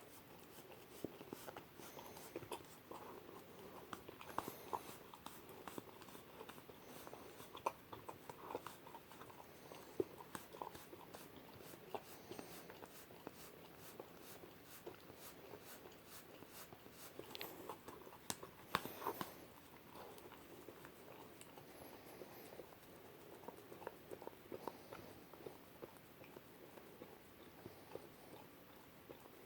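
German Shepherd puppy eating whipped cream from a cup: soft, irregular licking and chewing smacks and clicks, with one sharper click just before 19 seconds in.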